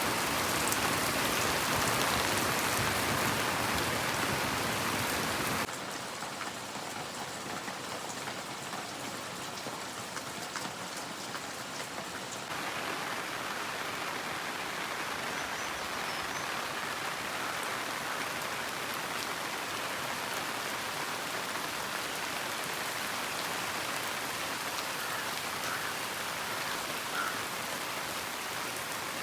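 Steady rain falling. It drops abruptly in level about six seconds in and comes back up slightly about twelve and a half seconds in.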